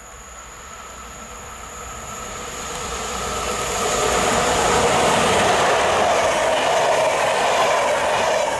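Škoda class 362 electric locomotive hauling a local passenger train, approaching and passing close by. The noise of its wheels on the rails and of the locomotive running grows over the first four seconds, then stays loud.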